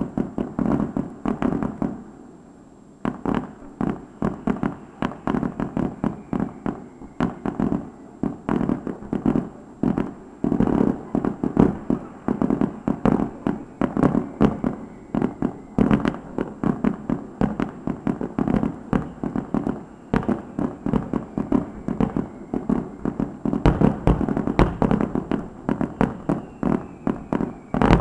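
Fireworks going off in a rapid, continuous barrage of bangs, several a second, with a brief lull about two seconds in.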